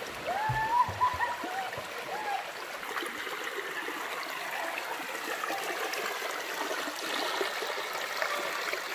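Shallow river running over boulders: a steady rush and trickle of water. A few brief pitched calls sound over it in the first couple of seconds.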